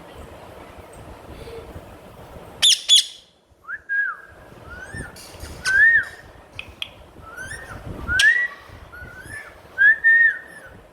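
A pet parrot gives two loud, harsh screeches close together. They are followed by a string of short whistled notes that glide up and down, about one or two a second, through the rest of the sound.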